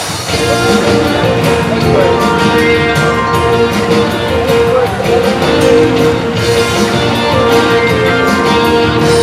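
Loud circus show music accompanying an elephant act, with a long held note through most of it over a steady beat.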